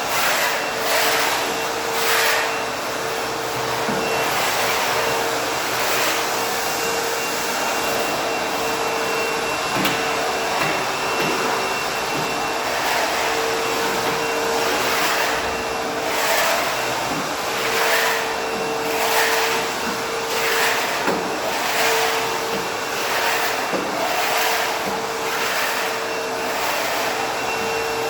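ProTeam Super CoachVac backpack vacuum running steadily on hardwood floor, its motor holding an even whine, with repeated brief hissing surges over the top.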